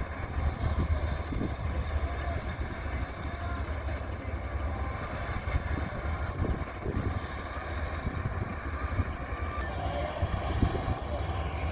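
Combine harvester running steadily while cutting wheat, a continuous engine rumble with an even mechanical hum.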